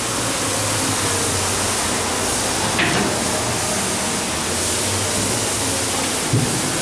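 Steady rushing background noise with a low hum underneath, and a soft thump near the end.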